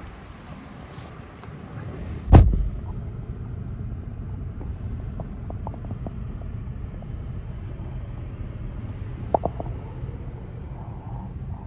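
An SUV's door shuts with a heavy thump about two seconds in, and the outside noise drops away. After it, a steady low rumble, with a few light clicks later on.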